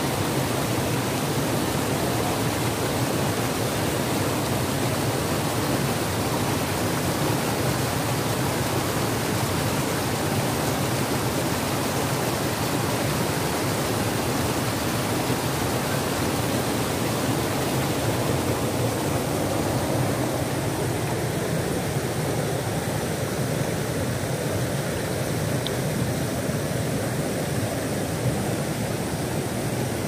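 Shallow rocky river rushing and splashing over boulders in small cascades, a steady full rush of whitewater with no let-up.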